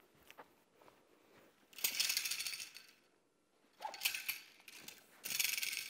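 Three swishing whooshes, about two, four and five seconds in, as a wushu spear with a red horsehair tassel is swung and circled close around the body. A few light taps come before them.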